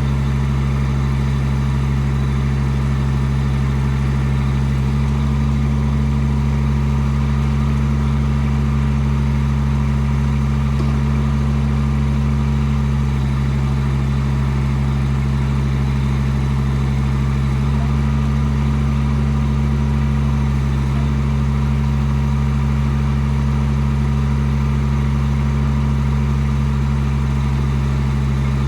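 Chinese mini excavator's engine running steadily, with slight dips and rises in pitch a few times as the hydraulics take load while the boom and arm are moved.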